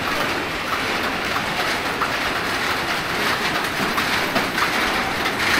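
Steady rain: an even hiss with scattered light taps, a little louder near the end.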